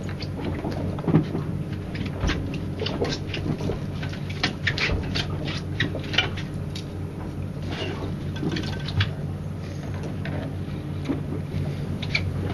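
A boat engine idling with a steady low hum, with irregular sharp clicks and taps several times a second from fishing tackle being worked on deck.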